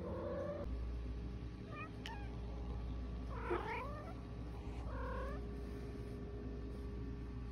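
Long-haired calico cat meowing in short, talk-like calls, about four of them. The longest and loudest, midway, is captioned as "Yay!".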